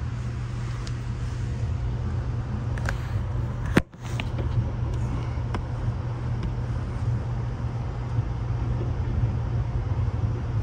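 Steady low rumble inside a passenger sleeper car of the Canadian as the train rolls slowly along, with a few faint clicks. About four seconds in there is one sharp knock, and the sound cuts out for an instant right after it.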